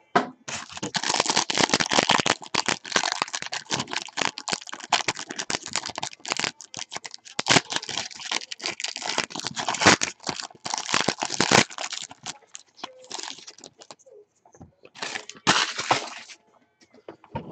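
Foil wrapper of a trading-card mini box crinkling and crackling as it is torn open and pulled off. The crackling is dense for about eleven seconds, thins out, then comes back in a short burst near the end.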